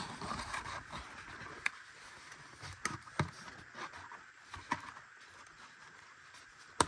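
Cardboard mailer box being closed and handled on a desk: a few light knocks and taps of cardboard, with a sharper knock near the end.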